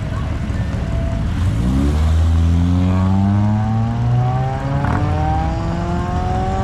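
Honda car's engine revving up sharply as it pulls away, then rising steadily in pitch as it accelerates through one gear.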